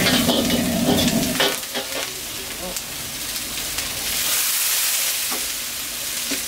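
Chicken and vegetables sizzling in a wok on a gas wok burner while being tossed and stirred with a metal wok ladle, with a few sharp clacks of ladle on wok. A loud low hum under the sizzle drops away about a second and a half in, leaving the high sizzle.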